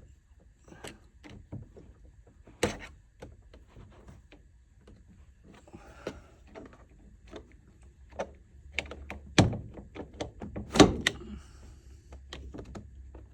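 Plastic interior trim of a 2015 Nissan Rogue being pried and wrenched at a stubborn clip: irregular clicks, knocks and scraping, with three louder thunks about three seconds in, near nine seconds and near eleven seconds.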